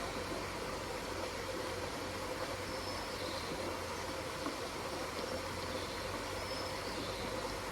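Steady rushing of water in a pond, with faint short bird calls now and then and a faint steady hum underneath.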